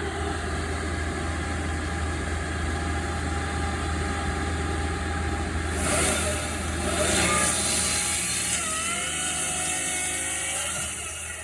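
Heavy equipment engine running steadily, then revving about six seconds in with a loud rushing hiss and a whine that glides up and down, as the machine works the load.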